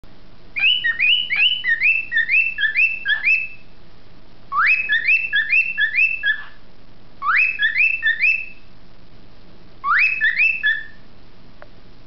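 Cockatiel whistling in four bursts of quick, repeated chirping notes. Each burst opens with a rising note, and the bursts get shorter one after another, with pauses of about a second between them.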